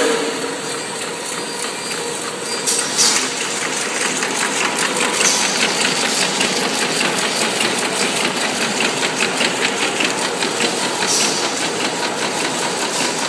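Automatic chocolate-coated wafer feeding and packing line running: a steady mechanical hum with a fast, even clatter, about five or six ticks a second.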